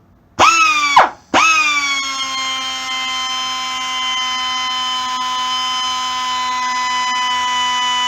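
Air die grinder (22,000 rpm, 1/4-inch collet) triggered briefly, then started again and held, giving a steady high whine. Each time it starts, the pitch jumps up and then eases down to a steady level.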